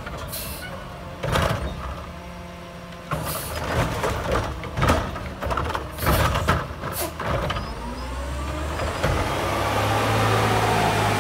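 Mack LR garbage truck's Curotto-Can automated arm grabbing a wheeled trash cart and tipping it, with a run of sharp bangs and clatter as the cart is shaken empty, over the truck's idling diesel. Near the end the engine revs up, rising in pitch, as the truck pulls away.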